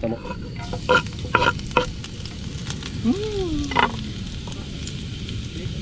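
Cooking oil sizzling and hissing in a pan, with a few sharp clinks of a utensil against the pan about a second in.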